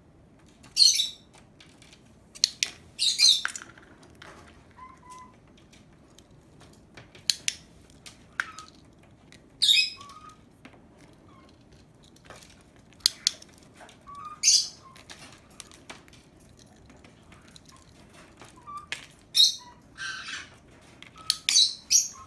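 A lovebird giving short, high-pitched chirps, a dozen or so spread out over about twenty seconds and some coming in quick pairs, with a few sharp clicks in between.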